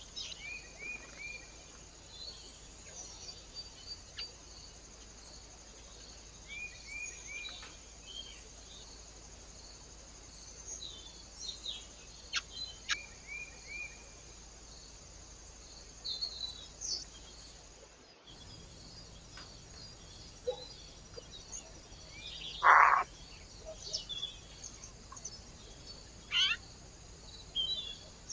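Small birds calling at a feeder: scattered sharp high chirps and little groups of quick downslurred notes, over a faint steady high hiss. About 23 seconds in comes one louder, rough, short sound, the loudest in the stretch.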